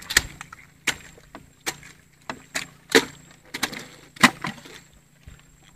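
A series of sharp, irregular knocks and taps, about ten of them, the loudest around three and four seconds in.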